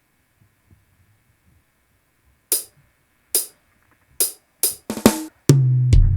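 Live reggae band starting a song. After a couple of seconds of near silence, the drummer plays three sharp hits a little under a second apart, then a quick fill, and the full band comes in with bass and keys near the end.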